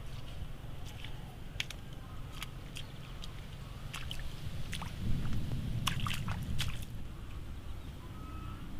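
Bare feet wading through a shallow muddy puddle in a garden furrow, squelching and sloshing in the water, with a louder run of splashes in the middle.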